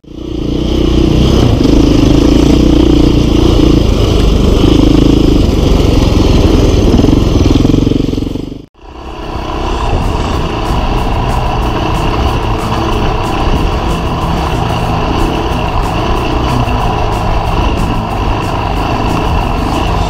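2009 KTM 530 EXC dirt bike's single-cylinder four-stroke engine running under way on a trail ride. The sound drops out briefly a little under nine seconds in, then the engine carries on.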